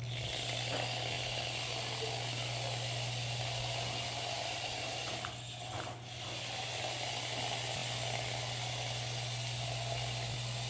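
Ride-on toy vehicle (the 'pile driver') being driven across the floor: a steady mechanical hum with a hiss, easing off briefly about halfway through.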